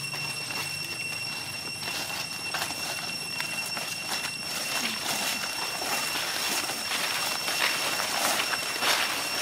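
Dry fallen leaves crunching and rustling underfoot in irregular crackles that grow louder and busier in the second half. A steady high-pitched whine runs underneath.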